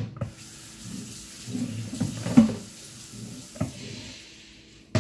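Water running from a kitchen tap into a sink, stopping near the end, with a few sharp knocks of things being handled, the loudest about halfway through.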